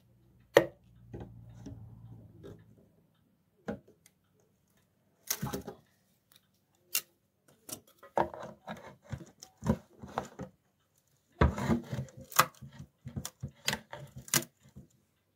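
End-cutting pincers and a screwdriver prying nails and the plywood back panel off a wooden cabinet: separate sharp clicks, snaps and scrapes of metal on nails and wood. There are a few at first, then dense clusters from about eight seconds in.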